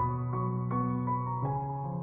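Background music: a slow, gentle piano melody, with a new note struck about every half second over held bass notes.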